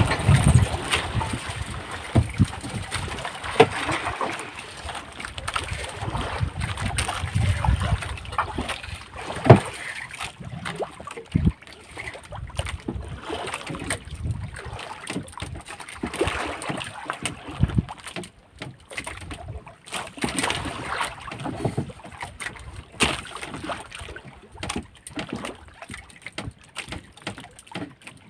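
Water sloshing and splashing against a small fishing boat's hull, with scattered knocks and thumps and wind buffeting the microphone.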